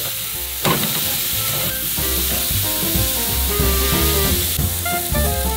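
Thick ribeye steaks sizzling on the hot grate of a charcoal grill as they are seared over the coals. Background music comes in about two seconds in and grows stronger near the end.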